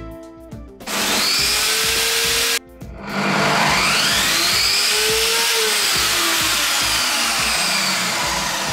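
Parkside PTKS 2000 G5 table saw switched on: the motor and blade start about a second in, cut out briefly, then start again and run up to speed with a slowly rising whine before running steadily.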